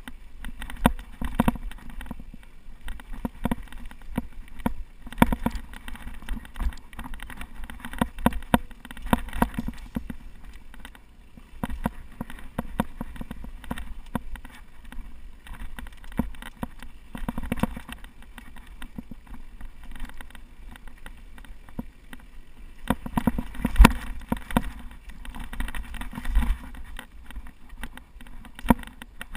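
Mountain bike descending a rough trail at speed: constant irregular rattling and knocking of the bike over bumps, with tyre rumble, and a few heavier knocks near the end.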